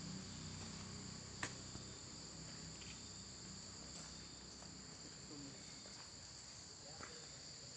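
Faint, steady high-pitched drone of a forest insect chorus, holding two even pitches, with a single sharp click about one and a half seconds in.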